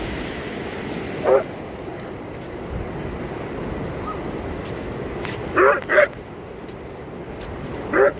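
A dog barking: four short barks, one about a second in, two in quick succession a little past the middle, and one at the very end. Behind them is steady wind and surf noise.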